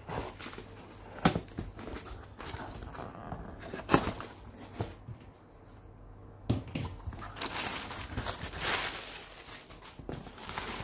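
A cardboard shipping box being cut open and handled: scrapes and rustles of the cardboard flaps with two sharp knocks, one about a second in and another about four seconds in. Near the end comes a longer stretch of crinkling as plastic packaging and bubble wrap are handled.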